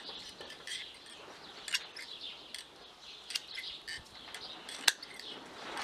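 Hand pruning shears snipping small side shoots and leaves off a pomegranate branch: several sharp snips, the loudest about five seconds in. Birds chirp in the background.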